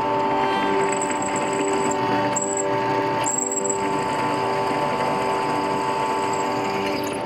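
Drill press running, its twist bit cutting a quarter-inch starter hole through a metal bar held in a vise. A steady motor hum, with a faint high whine that drops out briefly twice.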